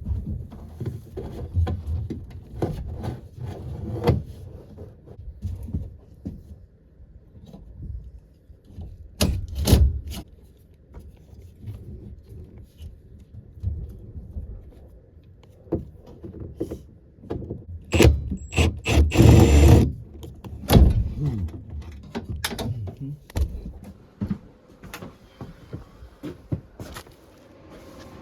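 Irregular knocks, clatter and scraping of tools against sheet-metal ductwork and an air handler's cabinet as they are worked loose, with a louder stretch of rattling and scraping about eighteen seconds in.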